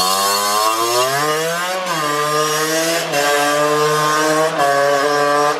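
Derbi Senda 50cc two-stroke engine running at high revs through a new Yasuni Max Serie Cross HM expansion-chamber exhaust. The pitch dips, climbs about two seconds in, then holds high and steady.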